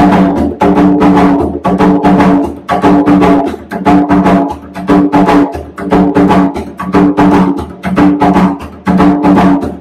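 Bomba drum played with bare hands in the sicá rhythm: a steady, repeating pattern of ringing strokes that cycles about once a second.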